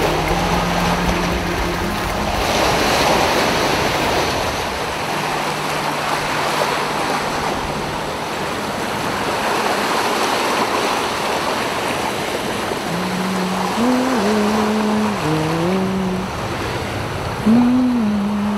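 Sea surf washing steadily onto the shore. Past the middle, a low melody of held notes that slide from one pitch to the next comes in over it.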